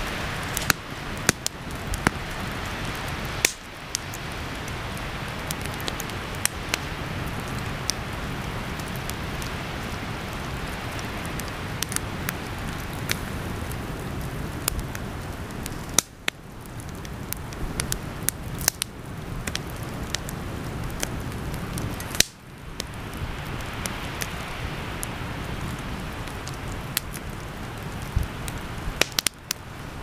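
Wood campfire burning: a steady hiss with frequent sharp pops and crackles from the burning logs.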